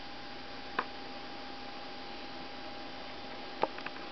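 Steady electrical hum and hiss, with a few short faint clicks about a second in and again near the end.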